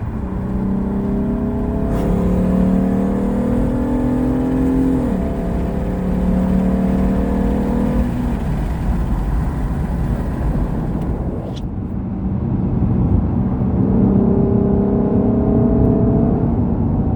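Lexus GS350 F Sport's V6 engine and exhaust under hard acceleration: rising in pitch, dropping abruptly at an upshift about five seconds in, holding steady, then pulling up in pitch again near the end.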